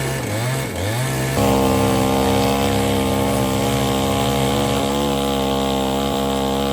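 Two-stroke chainsaw engine revving up and down, then held steady at high speed.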